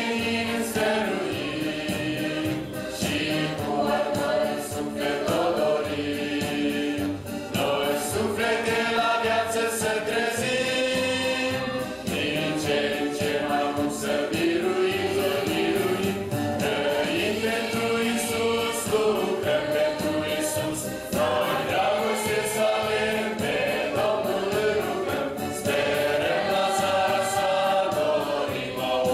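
Mixed youth choir of young women and men singing a Christian hymn together, with long held notes.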